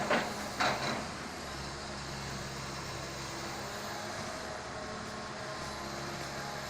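Komatsu excavator's diesel engine running steadily, with two short, loud crackling bursts in the first second.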